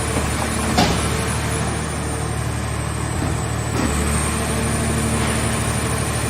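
Portable hydraulic car baler's engine and hydraulic power unit running steadily under load, with a sharp knock about a second in and a weaker one a few seconds later.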